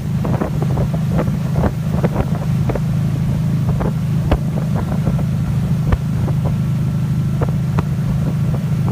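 A tow boat's engine running steadily under way, with wind buffeting the microphone and irregular short knocks and slaps scattered throughout.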